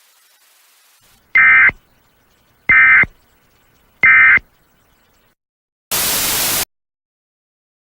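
Emergency Alert System end-of-message tones: three short, identical data bursts about 1.3 seconds apart, signalling that the alert broadcast is over. About six seconds in comes a brief burst of static hiss, under a second long.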